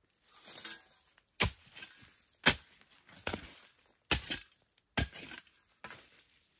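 Metal blade of a long-handled digging spade chopping into soil and roots, with four sharp strikes about a second apart. Softer scrapes and rustling of earth and dry leaves come between the strikes.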